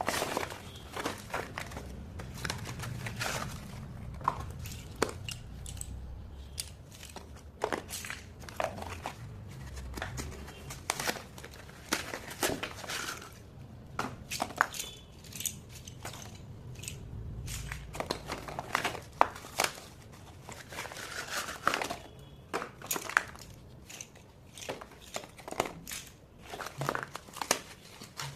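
Packaging of a box of slate pencils being handled and opened: crinkling and tearing rustles mixed with many sharp clicks and taps, close up.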